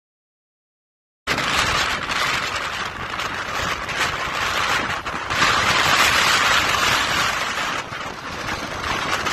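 Silence, then about a second in, gale-force wind starts blasting across the phone's microphone above a rough, breaking sea: a loud, continuous rushing noise that swells and eases in gusts.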